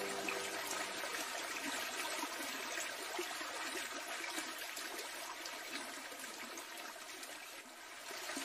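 Faint, steady water sound.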